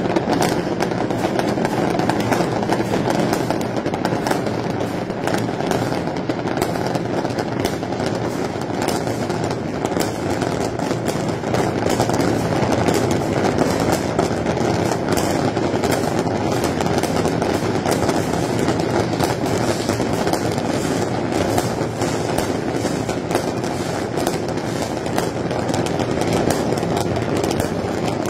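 A dense fireworks barrage: many rapid cracks and pops that run together into a continuous din, with no let-up.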